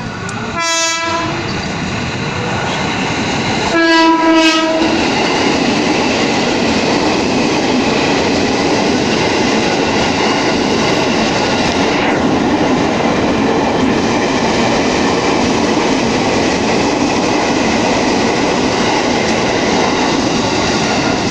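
JR 205 series electric commuter train sounding its horn twice, a short blast and then a longer one about three seconds later, then running close past with a steady clatter of wheels on the rails.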